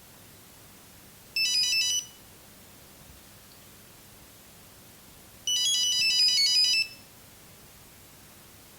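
Nokia 6310 monophonic ringing tone playing a melody of quick, high beeping notes in two phrases: a short one about a second and a half in and a longer one of about a second and a half near the middle, with pauses between.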